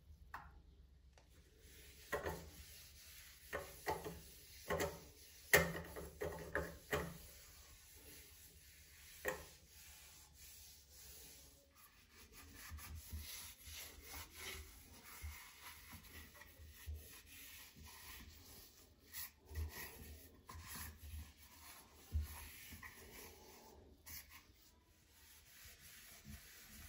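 Damp toilet paper being crumpled and handled, with a run of sharp crackles and clicks in the first several seconds, then quieter rubbing as it is wiped over a plastic toilet seat and lid.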